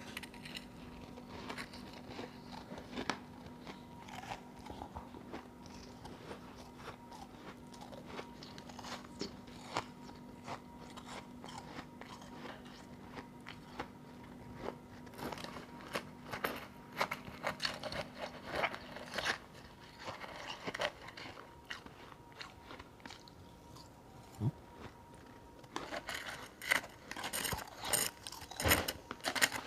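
A person biting and chewing chunks of powdery ice close to the microphone, with irregular crisp crunches that come faster and louder near the end.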